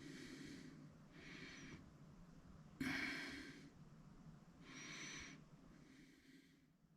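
A person breathing audibly close to the microphone: four soft, hissy breaths about a second and a half to two seconds apart, the loudest about three seconds in.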